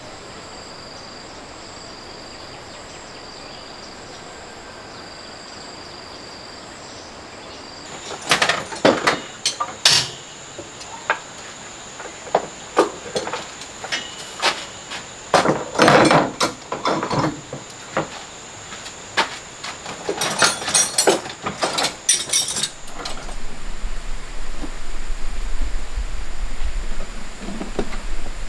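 Quiet outdoor ambience with a thin, steady high insect drone, then a run of irregular clanks, knocks and rattles as tools and gear are taken off metal shelves and handled. Near the end, a low steady rumble sets in.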